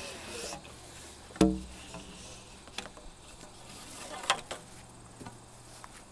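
A single sharp knock with a deep low thud about a second and a half in, then a few faint clicks over a light steady hiss.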